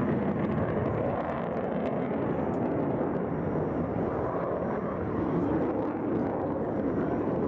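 Panavia Tornado jet aircraft with its twin RB199 turbofan engines, a loud and steady jet roar that neither clearly builds nor fades.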